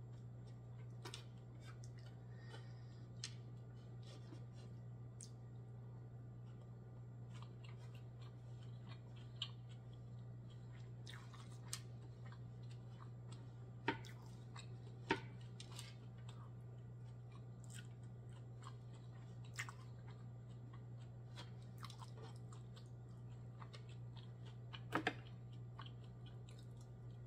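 Quiet chewing and mouth sounds of someone eating rice and cucumber with her fingers, with scattered soft clicks and crunches over a steady low hum.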